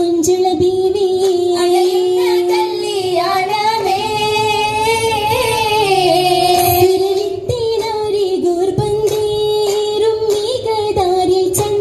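Girls' voices singing an Oppana song (Mappila folk song) together in one melody line, with sharp hand claps falling now and then between the phrases.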